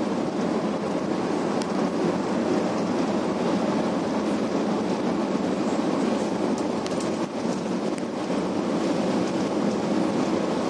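Steady interior drone of a bus cruising at highway speed: engine and tyre noise, with a few faint clicks or rattles.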